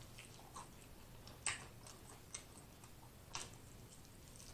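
Faint wet mouth clicks and smacks of someone biting and chewing a sauced honey BBQ chicken wing, a few scattered clicks, the clearest about a second and a half in.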